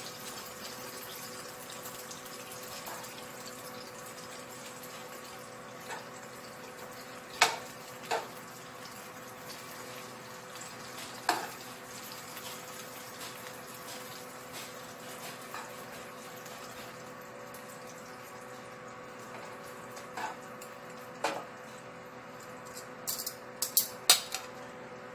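Metal kitchen tongs clicking against a nonstick frying pan and a ceramic plate as grilled chicken pieces are lifted out, a few scattered clinks with a quick cluster near the end, over a steady low hiss.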